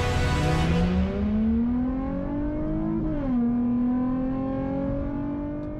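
Nissan 350Z's V6 engine accelerating hard, its pitch climbing steadily, then dropping sharply about three seconds in at an upshift and climbing again in the next gear.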